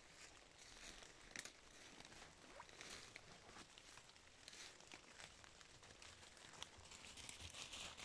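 Faint, irregular rustling and crunching of dry fallen leaves and twigs underfoot, with a few sharper snaps.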